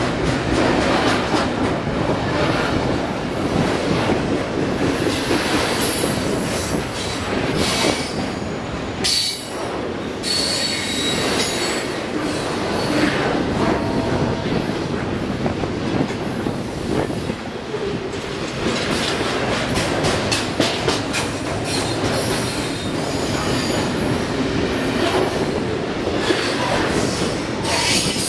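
CSX double-stack intermodal freight cars rolling past close by, their wheels clattering over the rail joints in a steady, loud rumble, with brief high wheel squeals now and then.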